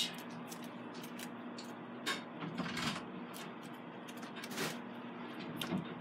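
Plastic water-bottle label handled in the fingers: scattered soft crinkles and light clicks, with a brief rustle about two seconds in and a few more near the end, over a faint steady hum.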